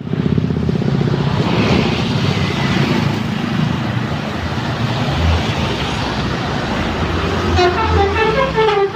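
A bus engine running with road noise, then about seven and a half seconds in a telolet basuri musical bus horn starts playing a quick melody of changing notes.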